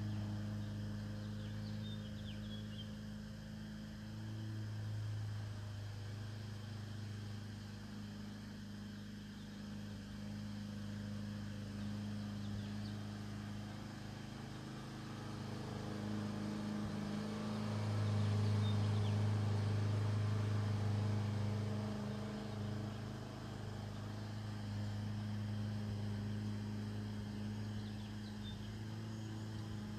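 Steady low mechanical hum with a fainter higher tone above it, swelling a little about four seconds in and louder for a few seconds past the middle.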